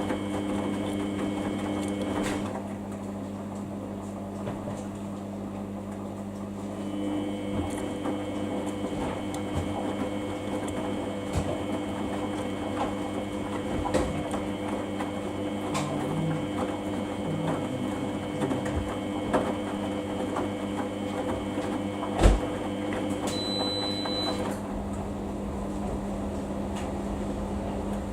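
Samsung washing machine running with a steady motor hum and whine. The whine cuts out and comes back a couple of times, with light clicks throughout and one sharp knock about 22 seconds in.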